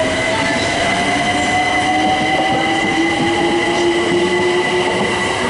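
London Overground class 378 electric multiple unit on the move, its traction motors whining in a slow upward glide as it gathers speed. A steady high tone and the rumble of the train sit beneath the whine.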